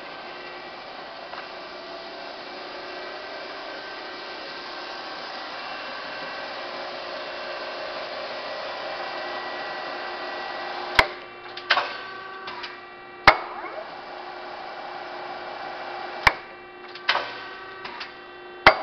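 Amada S1232 sheet-metal shear running with a steady motor hum, then, about eleven seconds in, a series of six sharp metallic clanks, some in pairs under a second apart, as the machine works.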